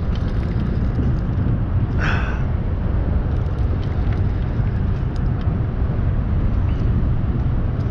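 Wind buffeting the camera microphone over open water: a steady low rumble with a hiss on top, and a brief louder gust of hiss about two seconds in.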